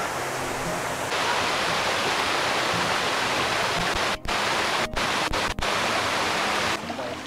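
A small waterfall cascade on a mountain stream, pouring over layered rock ledges into a shallow pool: a steady rush of splashing water. It grows louder and brighter about a second in, and drops out for an instant a few times around the middle.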